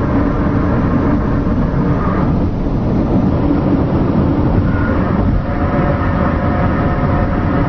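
Steady low rumbling noise of a car driving on a highway, with faint droning tones wavering over it that come and go.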